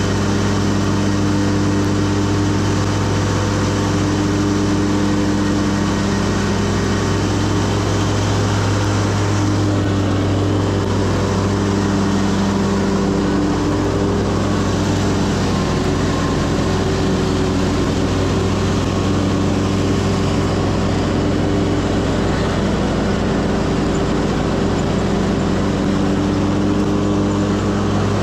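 Stand-on commercial lawn mower's engine running steadily at working speed, close up from the operator's platform, a constant low hum with a steady pitch.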